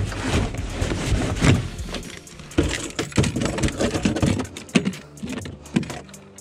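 Irregular knocks, rattles and rustling of handling on a fishing boat's carpeted deck as a freshly landed largemouth bass is held and moved, busiest in the first four seconds, then a few sharper knocks near the end.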